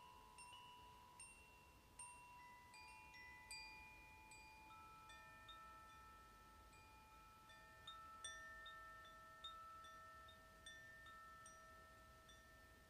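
Koshi chime ringing softly: light, scattered strikes of several tuned notes that ring on and overlap. In the second half a few lower tones hold long and clear.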